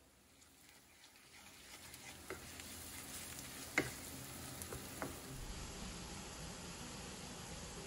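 Food frying and sizzling in a hot pan, the sizzle building up over the first couple of seconds, with a few sharp clicks; the loudest comes about four seconds in.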